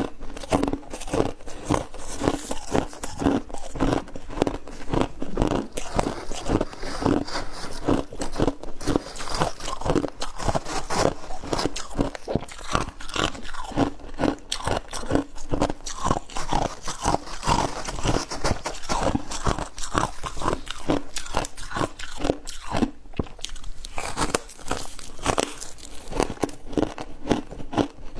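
Crunchy ice being bitten and chewed close to the microphone, a dense, continuous run of crisp crunches.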